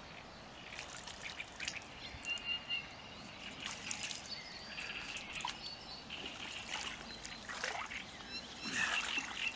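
Birds calling in short, scattered calls over light trickling and splashing of water.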